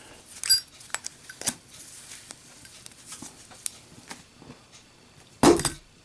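Zippo lighter during a drop test: a series of light metal clicks and taps, then a louder clattering knock about five and a half seconds in.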